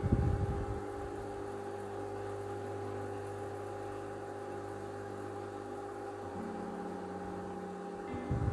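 Steady machine hum with several fixed tones, from an electric motor running in the kitchen. A wooden spoon stirs the chicken in the pot for about the first half-second, and the hum's lowest tone shifts about six seconds in.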